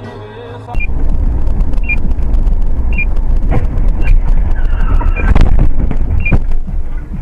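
Loud, dense low rumble of road and vehicle noise picked up by a dashcam, starting suddenly about a second in, with a short high beep repeating about once a second and a few sharp knocks mixed in.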